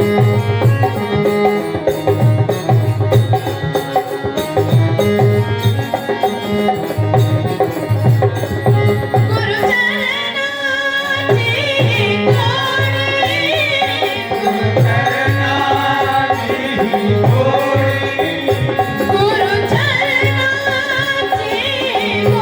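Harmonium and dholak accompanying a Marathi devotional bhajan: steady held harmonium notes over a regular beat of low drum strokes. About ten seconds in, singing with a wavering pitch joins over them, drops out briefly, and returns near the end.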